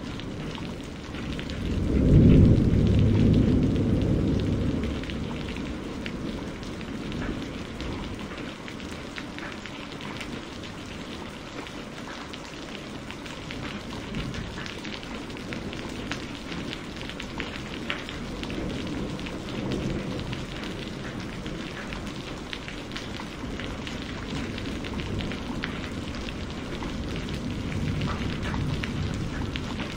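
Steady rain with thunder: a loud low rumble of thunder about two seconds in that fades over a few seconds, with fainter rumbles later under the constant patter of the rain.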